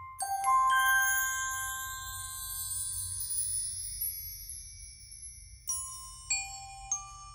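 Background music of bright, bell-like mallet notes. Sustained tones with a long rising shimmer give way, about six seconds in, to single struck notes.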